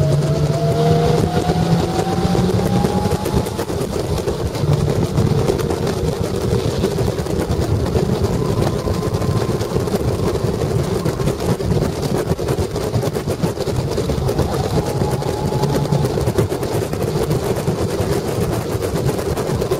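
Caterham Seven's 1.6-litre Ford Sigma four-cylinder engine pulling hard at speed, heard from inside the open cockpit. Its note rises over the first few seconds, then holds at high revs with small changes, over heavy wind and road noise.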